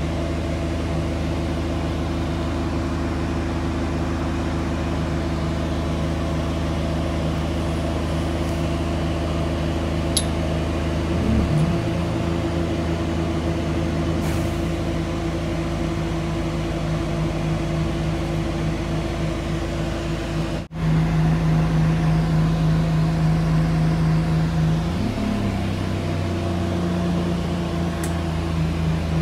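Bus engine humming steadily, heard from inside the cabin while moving, rising in pitch briefly twice. The sound drops out for an instant about two-thirds of the way through.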